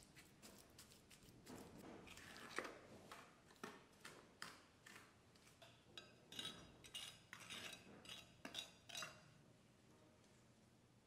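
A small flat hand tool scraping and smoothing wet cement mix packed in a plastic bucket mould: a run of faint, short scraping strokes, some with a slight ringing edge, dying away near the end.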